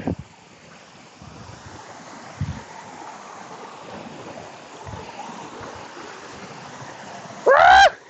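Steady rush of a small forest waterfall or stream, growing a little louder after the first second, with a few soft low knocks. Near the end a man gives one short, loud call that rises and falls in pitch.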